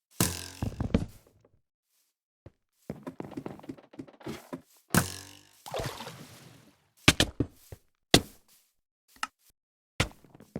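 Irregular thuds and knocks, with a few short scuffling sounds, separated by brief silent gaps.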